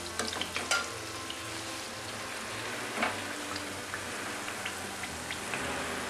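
Mathri deep-frying in oil in a kadhai, giving a steady sizzle. Over it come a few sharp clinks of a wire-mesh skimmer against the pan as the pieces are scooped out, several in the first second and one about three seconds in.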